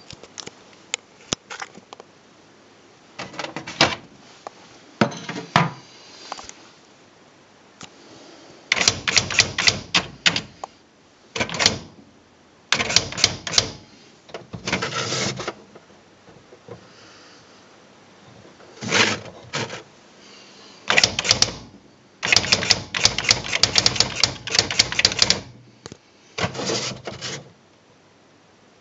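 Sharp QL-110 portable electronic typewriter printing: bursts of rapid mechanical clicking strikes, some brief and some lasting a few seconds, with short pauses between them and a few single clicks at the start.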